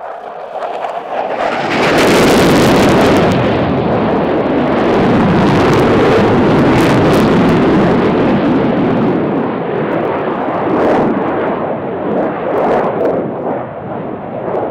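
Saab JAS 39 Gripen's single jet engine at high power in a display pass: a loud rushing jet noise that swells about two seconds in, with brief crackles, then wavers as the jet moves away.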